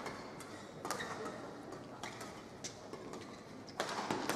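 Badminton rally: several sharp racket strikes on the shuttlecock, spaced about a second or more apart, over a low background hum of the hall.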